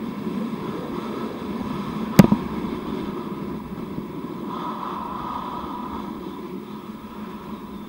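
Steady scraping rush of a rider sliding down packed, groomed snow, picked up by a helmet-mounted camera, with one sharp knock about two seconds in.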